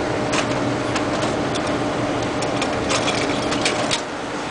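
A string of sharp metal clicks and knocks as the film gate is fitted and bolted back onto a cinema film projector, over a steady droning hum of the projection booth's machinery.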